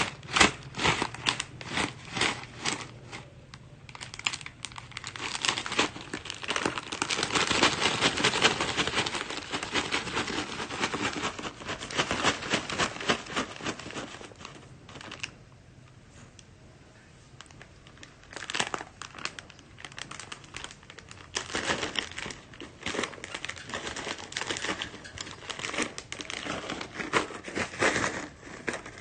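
Plastic snack packet crinkling and crackling as it is handled and pulled at, in busy bursts, with a quieter spell a little past halfway before the crinkling picks up again.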